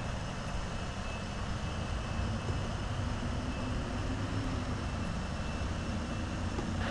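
Steady airport background noise: a low rumble of distant jet engines running, with a faint high whine.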